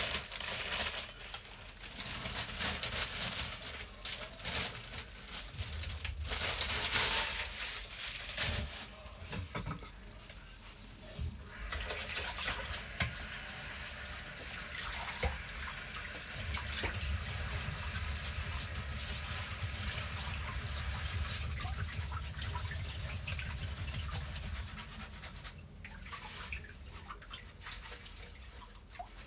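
Kitchen sink tap running and splashing as spinach leaves are rinsed under it, with a steady stretch of running water in the middle that stops about two-thirds of the way through.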